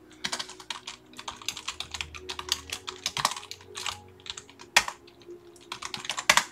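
Computer keyboard typing: a run of quick key clicks, a short pause, one louder keystroke near the middle, then a few more keys near the end.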